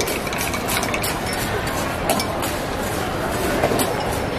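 Steady background din of a busy drinks counter, with frequent small clinks and clicks of glassware and utensils.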